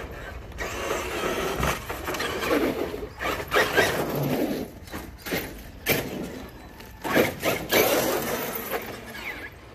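Traxxas X-Maxx electric RC monster truck driving on pavement: a rushing whir of its big tyres and drivetrain that swells as it comes close, broken by several sharp clacks and knocks as it bounces, wheelies and lands, the loudest around four seconds and again seven to eight seconds in.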